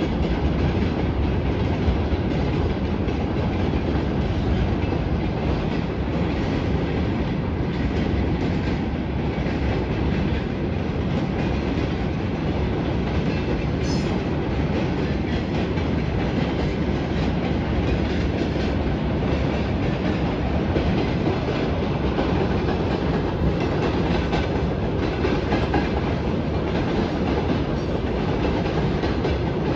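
Freight train rolling past at a steady speed: a continuous, even noise of wagon wheels running on the rails.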